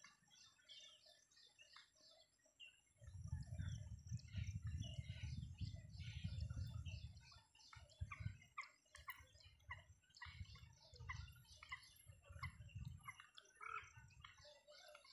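Small birds chirping and twittering over and over. Underneath, a low rumbling comes in about three seconds in, loudest for the next few seconds and then returning in shorter spells.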